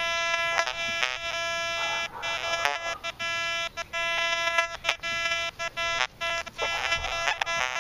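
Metal detector with a 6x10 double-D search coil sounding its target audio: a buzzy, mid-pitched tone that keeps breaking off and coming back as the coil sweeps. The choppy response goes with iron readings on the display, the trashy-sounding signal of iron junk in the ground.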